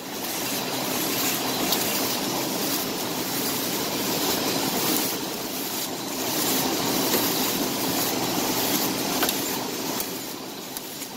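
Automatic flow-wrap packing machine for disposable cutlery sets running: a steady mechanical clatter and whir with a few sharp clicks. It turns quieter near the end.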